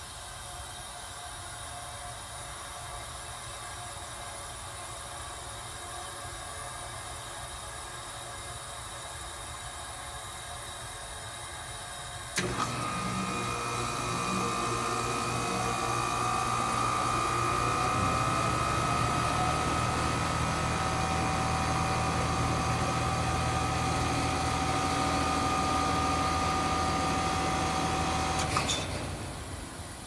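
Heat pump outdoor unit switching on with a click about twelve seconds in. It runs with a low hum and a steady higher whine, then cuts off abruptly with another click near the end, after only about sixteen seconds: short cycling, caused by a faulty control board.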